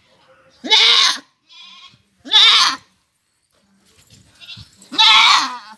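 A goat bleating three times, each a loud quavering call about half a second long, with a fainter call between the first two. The cries are those of a doe in labour with her first kid.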